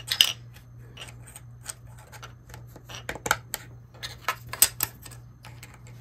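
Irregular small plastic clicks and taps as 3D-printed PLA track pieces are handled and snapped together by their dovetail snap-fit connectors.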